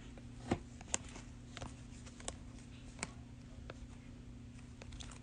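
Trading cards being handled and set down on a table: a few light taps and clicks, the sharpest about half a second and a second in, over a steady low hum.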